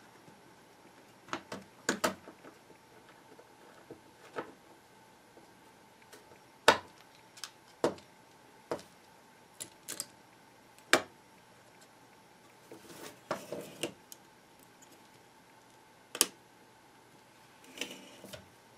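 Irregular sharp clicks and taps of plastic and small parts as a 1975 HP-55 calculator's case and internal boards are handled and pressed together, with short bursts of rustling about two-thirds of the way in and near the end.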